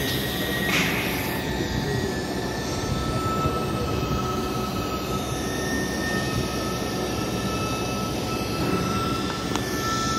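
TIG welding arc burning on a stainless-steel pipe: a steady hiss with a thin, high, constant whine.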